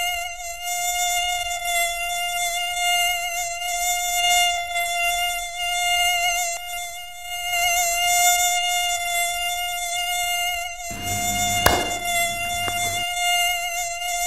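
Mosquito whining close by: a high, steady buzz that wavers slightly in pitch. Near the end there is one sharp smack.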